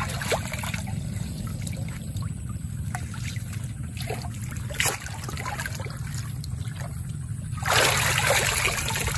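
Shallow water trickling and splashing, with scattered small drips over a steady low rumble, and a louder rush of water starting near the end.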